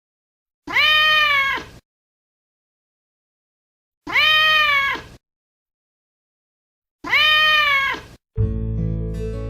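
Angry cat meowing three times, each a drawn-out meow of about a second that rises and then falls in pitch, with silence between. Strummed acoustic guitar music starts near the end.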